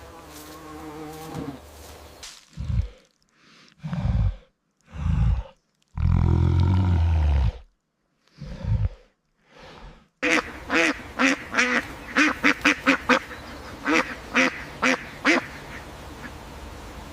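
Ducks quacking: a quick run of short, pitched quacks through the second half. Before that come several short separate animal calls, each cut off by silence.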